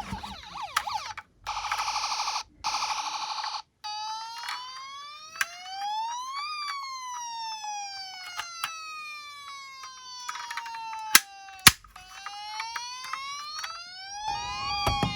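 Electronic siren of a toy ambulance. A quick warble and a short buzzy stretch give way to a slow wail that rises and falls, rises again and settles on a steady tone near the end. Two sharp clicks come a little before the last rise.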